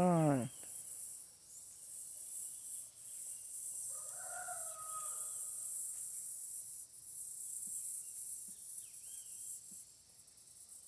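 A rooster crowing once, about four seconds in, over a steady high-pitched hiss.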